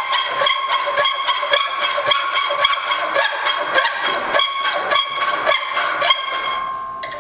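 Hacksaw cutting a steel-plate knife blank clamped in a bench vise, with quick back-and-forth strokes about two to three a second and the blade and steel ringing with a squeal. The strokes stop near the end, leaving a ringing tone that fades.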